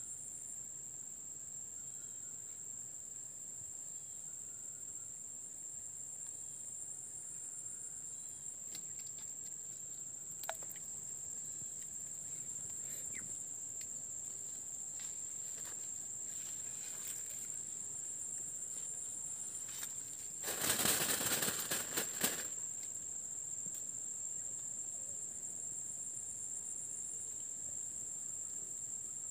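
Insects buzzing in a steady high-pitched drone, with a faster pulsing layer just above it. A little past two-thirds of the way through, a loud rustling lasts about two seconds.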